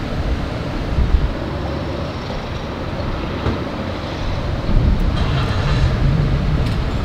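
Steady low rumble of vehicles and outdoor traffic around a gas station forecourt, with a slightly louder low hum swelling about five seconds in.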